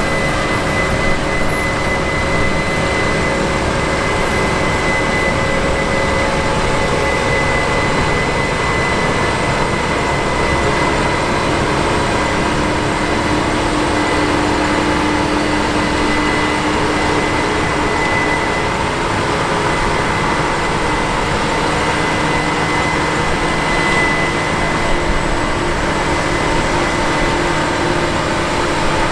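Large diesel harvest machinery running steadily: a combine harvester working alongside a tractor-drawn grain cart. The engines and threshing gear make an even noise with a thin, steady high whine over it.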